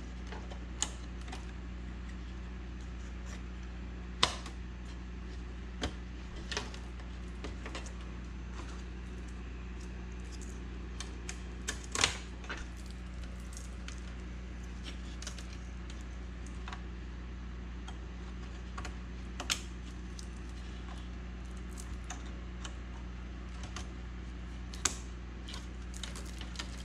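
Sharp, scattered clicks and clacks of a Dell H200 controller card and its SAS cable connectors being handled and seated inside an open Dell PowerEdge R710 server chassis, over a steady low hum. The loudest clicks come about four and twelve seconds in.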